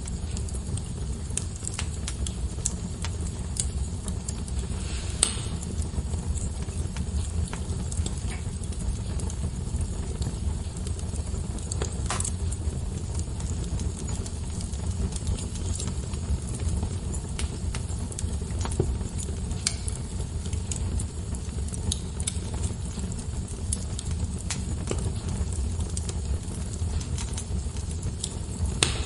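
Wood fire in a fireplace crackling steadily over a low rumble of flame, with a few louder pops about five seconds in, around twelve seconds, and near the end.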